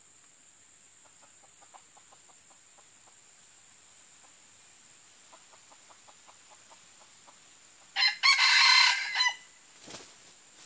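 Red junglefowl rooster giving soft, quick clucks, about four a second, then one loud, short crow about eight seconds in. A brief rustle follows near the end.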